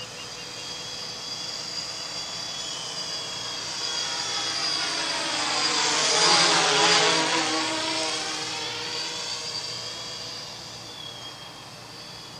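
3DR X8+ octocopter's eight coaxial motors and propellers buzzing in flight, swelling to their loudest as the craft passes close about six seconds in, then fading away.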